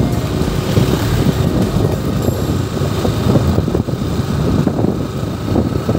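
Wind buffeting the microphone of a moving Bajaj Pulsar NS motorcycle, with the bike's engine running underneath as it cruises along the road.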